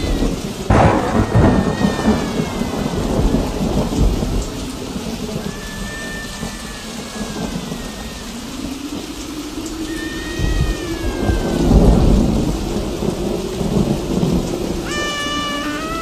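Thunderstorm sound effect: steady rain with thunder rolling, the heaviest rumbles about a second in and again around twelve seconds. A few thin high wailing tones slide downward over it.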